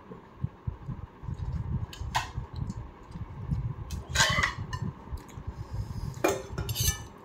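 White dinner plates being handled and set down on a dining table, with a few separate clinks and scrapes about two, four and six seconds in, over a low rumble.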